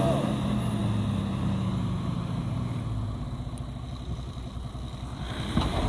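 Toyota Land Cruiser 100's engine running under load while towing a heavy fire truck. Its low drone eases off over the first few seconds and runs quieter, and there is a single sharp click near the end.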